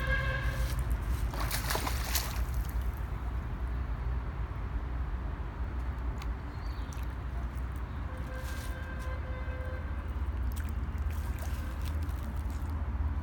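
A hooked carp thrashing at the water's surface, splashing and sloshing, most strongly about two seconds in. A steady low rumble runs underneath.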